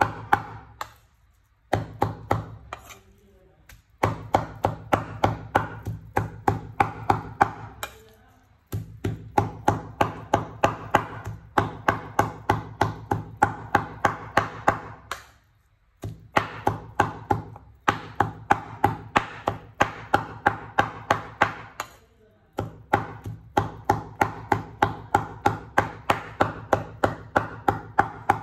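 A knife chopping raw pork into mince on a wooden cutting board, in quick even strokes about three a second, broken by a few short pauses.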